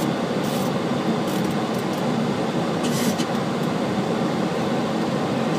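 Steady rushing noise of airflow and engines on a Boeing 737 flight deck in the initial climb, with a few brief hissy bursts on top.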